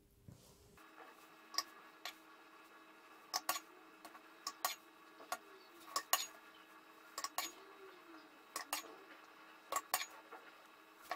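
Scattered light clinks and clicks of kitchenware, often in pairs, over a faint steady hum.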